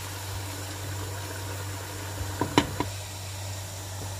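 Chicken curry simmering in a pot on a gas stove, a steady hiss with a low hum under it. About two and a half seconds in come three quick clinks as the pot's glass lid is set on the metal rim.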